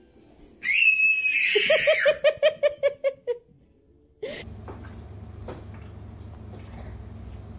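A high-pitched squeal breaking into a quick run of laughter, about eight short "ha"s a second, that stops about three seconds in. About four seconds in, a steady low hum starts, with a few faint knocks.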